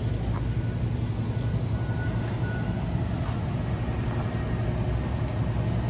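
Steady low mechanical drone of machinery or engines, with a faint high beep twice about two seconds in.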